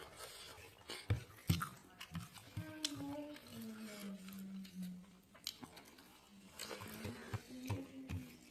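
A person eating chicken curry close to the microphone: chewing and biting with many short wet mouth clicks. Partway through comes a drawn-out low hum in the voice, sliding down in pitch.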